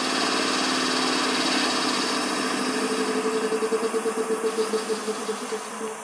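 Air compressor of a PKP ET22 electric locomotive (ET22-233) running while the locomotive stands, a steady hum with a rhythmic pulsing about five times a second that strengthens after a couple of seconds and falls away in level near the end.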